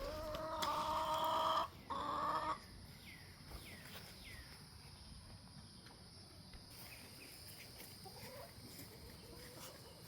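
A chicken calling loudly twice in the first two and a half seconds, followed by a few faint, short falling chirps.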